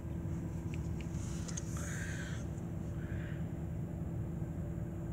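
Steady low idling rumble with a faint hum, heard from inside a stationary car's cabin.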